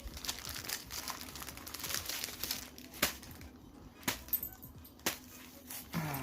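Paper fast-food packaging rustling and crinkling as it is handled, with three sharp clicks or taps about a second apart partway through.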